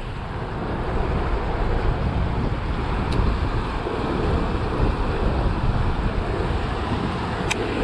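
Steady rush of a high, fast-flowing river, with wind buffeting the microphone as a low rumble. Two faint clicks, about three seconds in and near the end.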